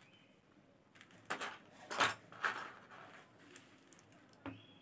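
Faint clicks and rustles of faceted beads knocking together as hands handle the beaded panel and string beads on thread, in a few short bursts between about one and two and a half seconds in.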